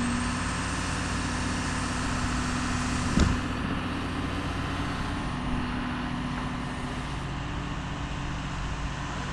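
Heavy-equipment diesel engine running steadily, with a single sharp knock about three seconds in.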